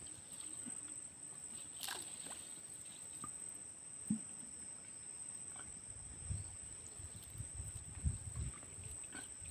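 A steady high insect buzz, typical of crickets, with scattered small clicks and splashy handling noises, and a run of low thuds between about six and nine seconds in as the fishing net is worked in shallow water.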